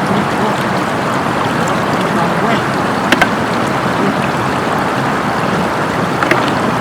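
Floodwater rushing steadily over a road, with two quick sharp clicks about three seconds in.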